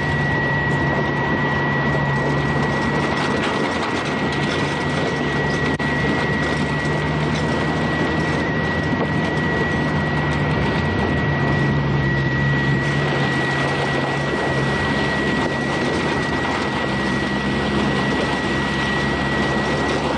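Vehicle engine running steadily while driving along a dirt forest track, with a constant high-pitched whine over it.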